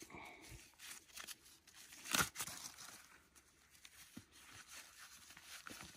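Faint rustling and crackling of handling, with one louder crunch about two seconds in.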